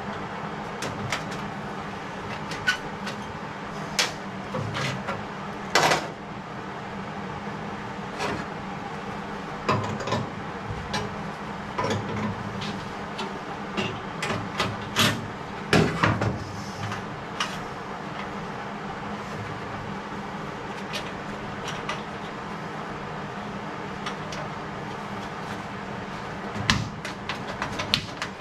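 Irregular knocks, clicks and taps of hand tools and sheet metal being handled, over a steady low hum.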